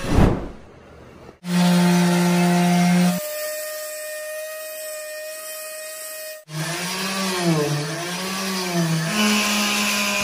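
Electric finishing sander running, sanding a painted body panel: a steady motor hum heard in several short cuts, its pitch wavering up and down in the second half. A brief whoosh at the very start.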